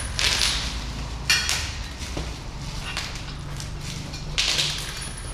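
Hand-tool and parts handling while a motorcycle handlebar is fitted: short rustling swishes near the start and near the end, and a sharp metallic clink about a second in, over a low steady hum.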